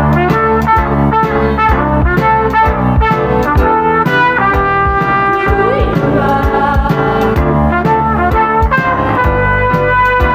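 Instrumental band interlude led by brass, trumpet and trombone, over a steady beat.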